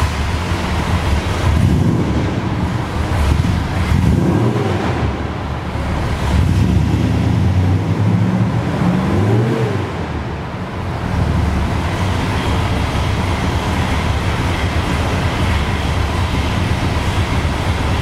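1970 Plymouth Road Runner Superbird's V8 engine started and running, revved twice with the pitch rising and falling about four and nine seconds in, then settling into a steady idle.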